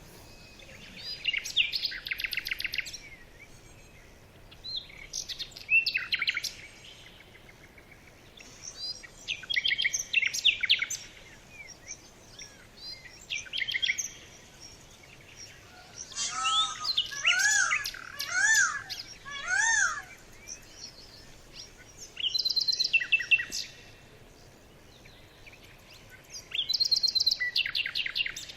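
Birds calling in short bursts of rapid chirping trills every few seconds, with a run of four arched calls that rise and fall in pitch about halfway through.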